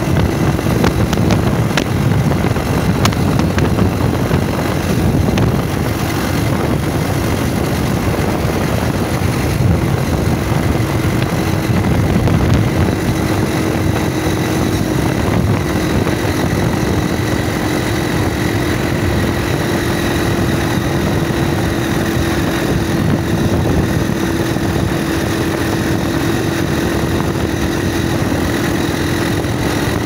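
Motorcycle riding at a steady cruising speed: the engine holds a constant note under a heavy rush of wind and road noise.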